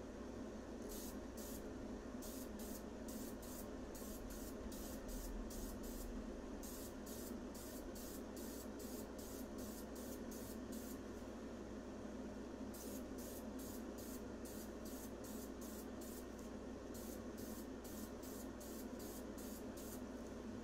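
Aerosol can of adhesion promoter sprayed in short spurts, about two a second, laying down a light first coat. The spurts come in two runs with a pause of about a second near the middle, over a steady low hum.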